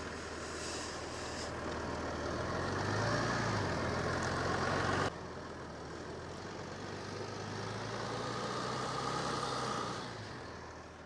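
Opel Vectra C's 3.0 V6 CDTI diesel engine revving under load as the stuck front-wheel-drive car tries to get out of a sandy rut, with the hiss of spinning tyres. It builds twice: the first build cuts off suddenly about halfway through, and the second fades near the end.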